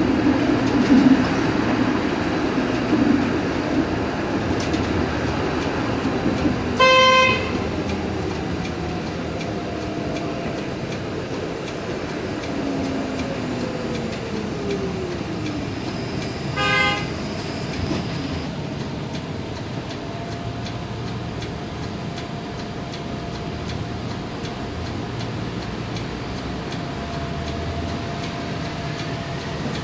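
Cab ride aboard a 1977–1980 UTDC CLRV streetcar: steady running noise, with a motor whine that falls in pitch as the car slows and rises again near the end. Two short horn toots sound, about 7 s and 17 s in.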